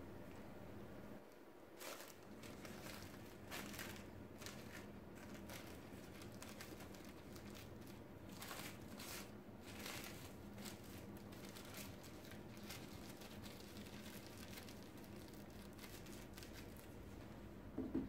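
Faint, irregular crinkling and rustling of a dog-coat wrap being handled and folded around a lock of a Yorkshire terrier's hair.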